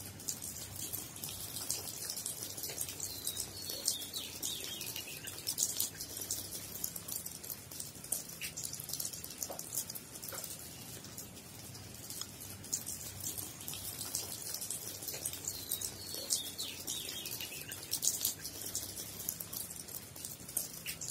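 Steady rain: a dense patter of small drop ticks over a soft hiss.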